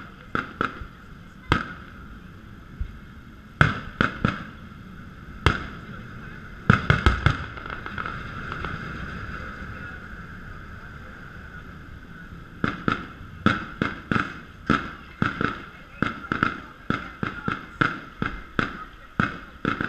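Distant aerial fireworks bursting: scattered bangs, a cluster about seven seconds in, a lull, then a rapid string of bangs about two a second through the last third.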